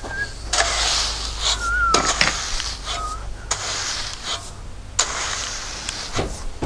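Crushed-stone bedding gravel (HPB) being scraped and raked: a long level and a wide rake dragged over the stone in a series of hissing, gritty strokes about a second long each, while the final grade is set for pavers.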